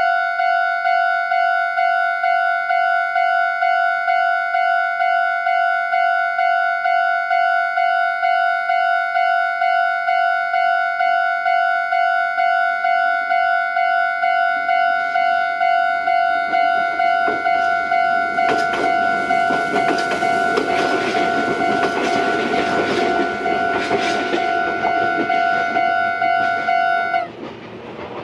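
Japanese level crossing's electronic warning bell sounding in a steady pulse about twice a second, while an electric train runs through the crossing in the second half, its wheels clattering over the rail joints. The bell cuts off suddenly near the end, the sign that the train has cleared the crossing.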